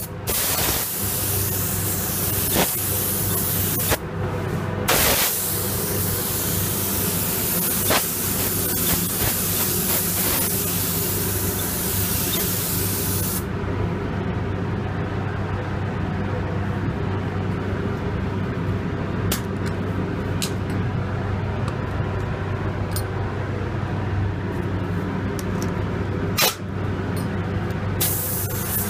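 Paint spray gun hissing as it sprays, with the trigger let off briefly around four and five seconds in. The spraying stops about halfway through and starts again near the end, leaving a steady low hum with a few light clicks in between.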